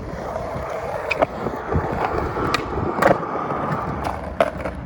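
Skateboard rolling with a steady rolling noise from its wheels, broken by several sharp clacks of the board, the loudest about three seconds in.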